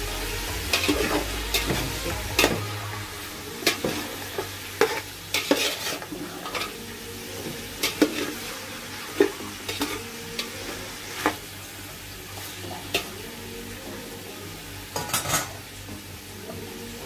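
Spoon stirring chicken pieces in an aluminium pot, knocking and scraping against the pot's sides in irregular strokes over a light sizzle of frying. The knocks come thick in the first ten seconds, thin out, then come again in a short flurry near the end.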